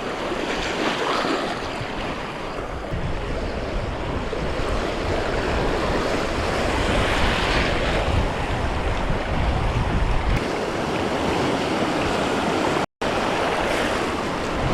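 Ocean surf washing steadily against the shore, with wind buffeting the microphone. The sound cuts out completely for an instant about 13 seconds in.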